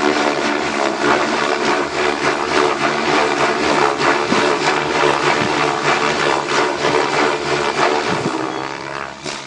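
Radio-controlled helicopter flying aerobatics: its motor and spinning main rotor blades running loud and steady through flips and tumbles, the level dropping sharply near the end.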